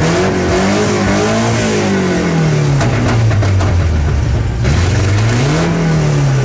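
A 2.7-litre engine running, revved twice: a slow rise and fall in pitch about a second and a half in, and a shorter one near the end, settling back to idle between them.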